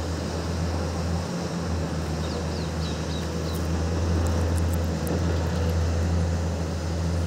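Large crawler excavator's diesel engine running steadily with a low drone, the machine holding its tracks raised on its boom.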